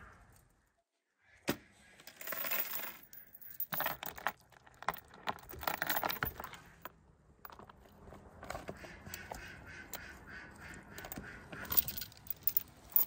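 Metal hook and chain clinking and rattling as they are worked into a raw whole chicken, with irregular knocks and rustles of the bird being handled and a sharp click near the end.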